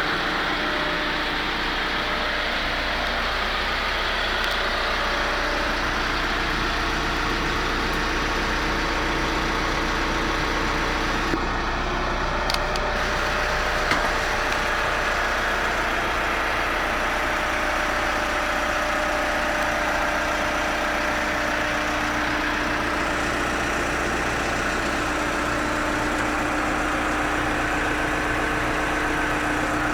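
New Holland LB110 backhoe loader's diesel engine idling steadily, with a few light clicks about halfway through.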